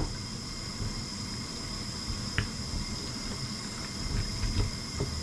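Wet squelching and light knocks of a knife working through the joints of a large softshell turtle's carcass, with a brief metallic ring about two and a half seconds in and a small flurry of knocks near the end, over a steady background hum.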